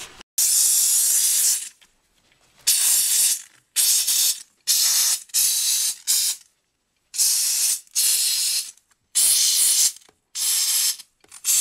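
Handheld steam cleaner hissing in about ten short, sharp-edged blasts with brief silent gaps, steaming grime out of the nooks of a motorcycle rear wheel.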